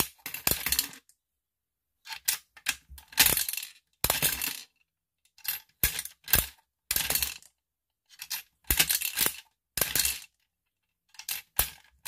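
Metal crank of a toy gumball machine being turned with a run of sharp clicks, and gumballs rattling down and clattering out of the chute. It comes in about five bursts of clicks and clatter, each a second or two long, with dead silence between them.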